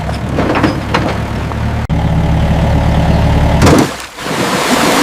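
A mini excavator's engine running steadily with a low hum. It breaks off sharply for an instant a little under two seconds in. Near the end the engine drops away and a rushing hiss takes over.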